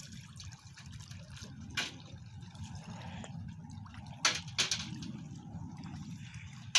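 River water dripping and trickling from a plastic sieve basket sifted through sand for hard clams, with a low wash of lapping water. A few sharp clinks, clams dropped into a steel basin.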